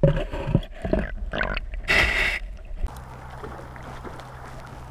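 Water gurgling and knocking as heard by an underwater camera in a shallow stream, irregular and muffled, with a louder rushing burst about two seconds in. At about three seconds it gives way to quieter open-air stream background with a low steady hum.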